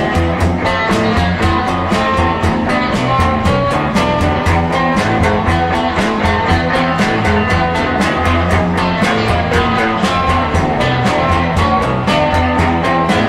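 Instrumental stretch of a psychedelic rock song: electric guitar over bass and drums keeping a steady, fast beat.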